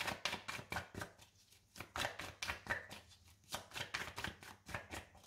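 A deck of tarot cards being shuffled in the hands: quick soft slaps of card on card, several a second, in short runs with brief pauses between.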